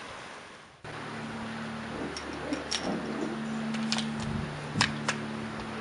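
Light wind noise that fades out. After about a second, a steady low hum with about six sharp, irregular metallic clicks from the handling of an 1892 Berthier carbine's bolt action.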